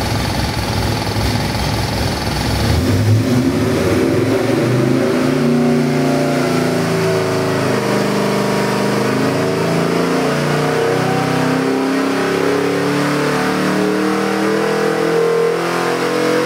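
Ford 408 cubic-inch stroker V8, built on a 351 Cleveland block, running on an engine dyno under load. It idles for about three seconds, then rises steadily in pitch through a full-throttle RPM sweep from idle to over 5,000 rpm.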